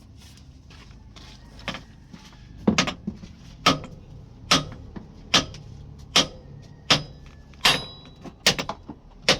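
Repeated sharp hammer blows on metal, about one strike every 0.8 seconds, beginning about two and a half seconds in, some with a short metallic ring, as engine parts are worked on.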